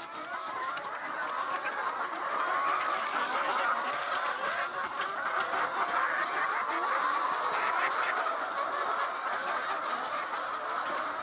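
A large flock of laying hens clucking and calling all at once, many overlapping calls blending into a continuous din.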